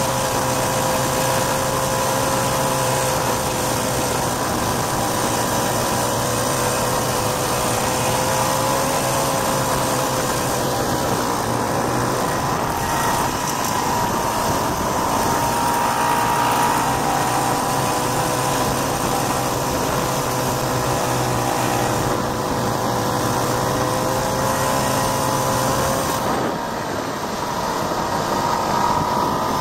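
A 1967 Ski-Doo Olympique's 250cc single-cylinder two-stroke engine runs steadily while the sled travels along the trail, with wind and track noise under it. The engine note wavers slightly with the throttle and eases off briefly near the end before picking back up.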